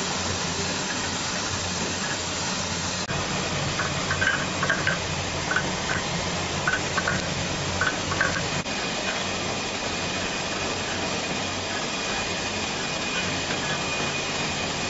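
ZPT27C dishwasher-tablet press running with a steady mechanical hum and hiss and a faint steady high tone, with a run of quick clicks and rattles from about four to nine seconds in.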